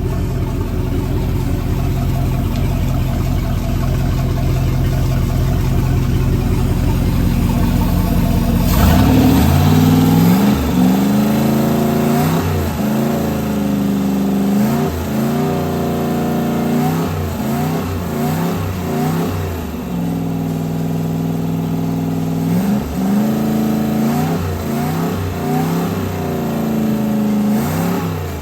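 Rebuilt 5.7 L 350 carbureted Mercruiser marine V8 running on a test stand: a steady low idle for about nine seconds, then revved up with the throttle worked up and down repeatedly, the pitch rising and falling. This is a test run after an overhaul (bored .030 over, one cylinder sleeved, carburetor rebuilt).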